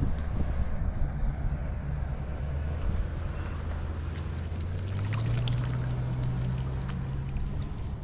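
A motor running with a steady low hum that steps up in pitch about five seconds in, over light splashes of a dip net being swept through shallow water.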